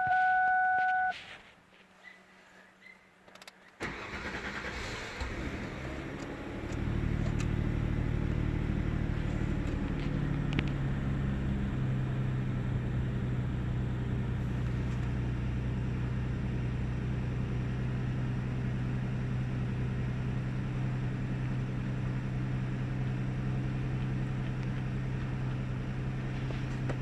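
A steady electronic tone stops about a second in. Then the 1998 Ford Taurus's 3.0-litre OHV V6 starts about four seconds in, runs up, and settles into a steady idle by about twelve seconds in. This is an engine with an intermittent rough idle and sputter of unknown cause.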